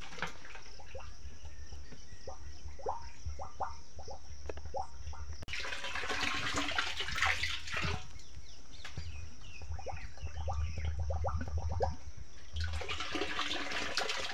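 Water gurgling and splashing as an empty plastic bottle is rinsed in a plastic drum of water: dunked under, filling with bubbling gurgles, and poured back out. Twice there is a louder rush of pouring, about halfway through and near the end.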